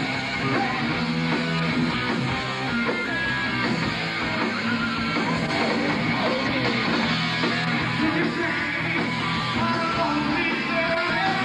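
A rock band playing live: electric guitar through Marshall amplifier stacks, bass guitar and drums, a dense and steady wall of sound.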